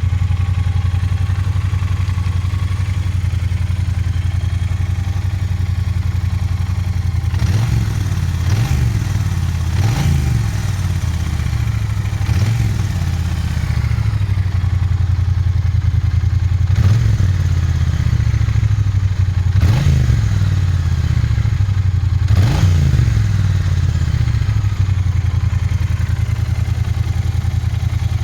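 Triumph Bonneville T120 parallel-twin engine on its stock exhaust, idling steadily. About seven seconds in it starts taking short throttle blips, each revving up and dropping back to idle, several seconds apart.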